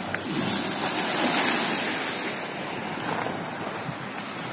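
Waves washing and breaking on a rocky, debris-covered shoreline, with wind buffeting the microphone.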